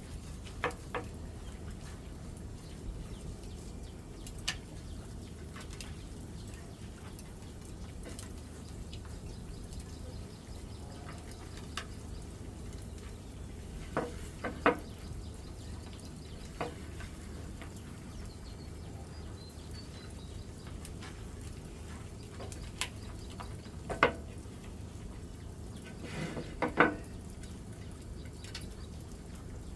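Occasional sharp clicks and knocks of objects being handled, a few of them in quick pairs, over a steady low hum.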